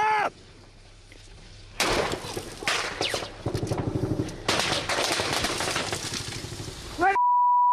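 Repeated bursts of automatic gunfire in rapid strings of shots, after a shout at the very start. Near the end a steady high beep blots out a shouted word.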